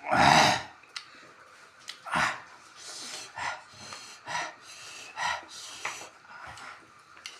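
A person panting and hissing air through the mouth: one loud sharp breath at the start, then quicker breaths about once a second. It is the hard breathing of someone whose mouth is burning from Naga king chilli.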